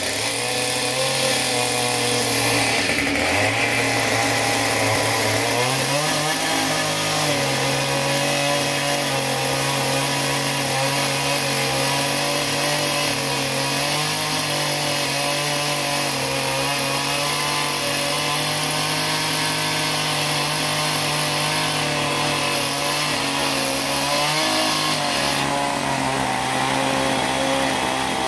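Two-stroke Husqvarna chainsaw running under load, its bar held against a log spinning on a lathe to shave it round. The engine note dips about three seconds in, climbs back up and then holds steady with small wobbles as the chain bites into the wood.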